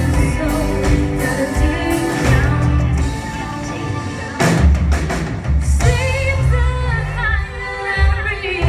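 Live rock band playing with a woman singing lead: electric guitars, keyboard, bass and drums under a wavering sung melody. The band comes in harder with a strong drum hit about four and a half seconds in.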